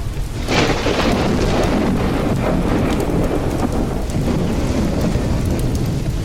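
Steady rain with a thunderclap breaking about half a second in, then rumbling on.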